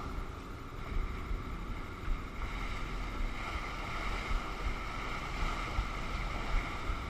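Wind buffeting the microphone over the steady rush of water along a sailboat under sail, with brief low thumps of wind throughout and the rush growing a little stronger about halfway through.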